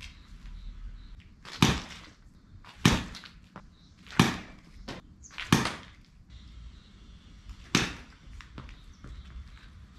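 Baseball bat striking tossed balls in quick toss-batting practice: five sharp cracks about a second and a quarter apart, then a pause and one more hit near the end, with softer knocks between them as the balls land.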